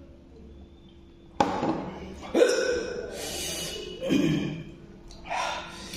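A man's sharp, breathy gasps and exhalations, about four in a row with sudden onsets, from the burn of eating very spicy Korean noodles.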